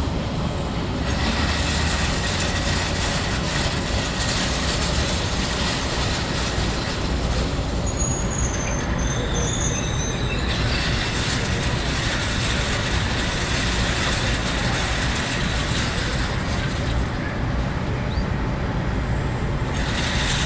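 Industrial machinery in a brick plant running steadily: the automatic block loader and its conveyors, giving a continuous mechanical rumble and hiss.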